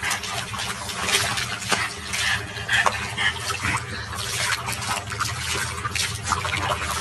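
Water splashing and sloshing in a plastic tub as a French bulldog sits and shifts about in it, in irregular splashes.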